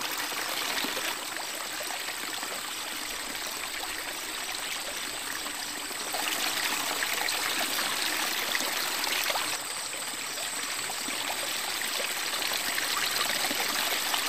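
Rushing water of a small waterfall pouring into a pool, a steady splashing wash. It gets louder about six seconds in, drops back a little before ten seconds, then builds slowly toward the end.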